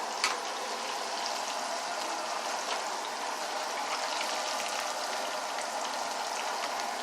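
Floured chicken bites deep-frying in hot oil in a pan, a steady crackling sizzle, with one light click just after it starts.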